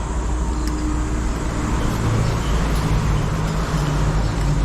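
Motor vehicle on the move: a steady engine and road rumble, with the engine tone rising a little about two seconds in.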